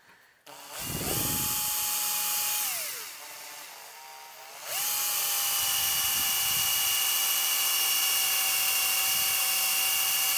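Handheld power drill spinning up and drilling a hole through a metal amplifier chassis with a steady whine. It winds down about two and a half seconds in, then starts again about five seconds in and runs steadily. The bit is worn, one that has seen better days.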